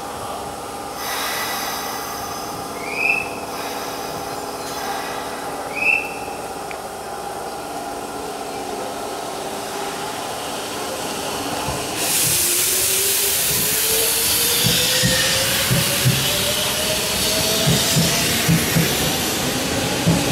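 Hanshin 8000 series electric train pulling out of the station. After a steady hum and two short high chirps, the traction motors whine up in pitch as it accelerates. From about halfway a steady hiss sets in, with wheel clicks over the rail joints coming faster.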